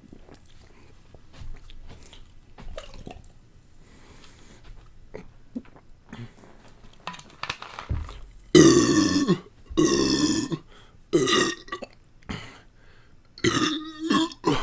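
A man burps loudly four times after chugging a bottle of Sprite, bringing up the soda's carbonation. Each burp is a pitched belch under a second long. They come in the second half, after a stretch of soft breathing-and-mouth sounds.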